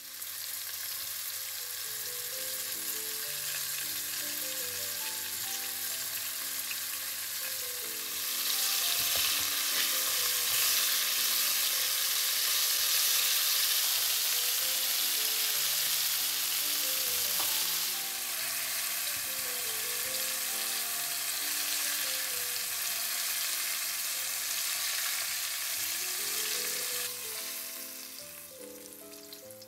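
Food sizzling in hot oil in a frying pan, louder for a stretch in the middle and dying down near the end.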